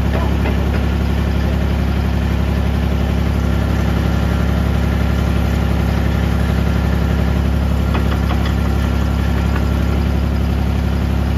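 Mini excavator's diesel engine idling steadily, with a few faint clicks about eight seconds in.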